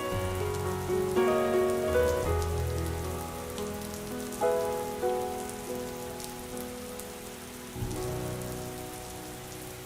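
Steady rain falling, mixed under held, wordless vocal notes that fade out gradually.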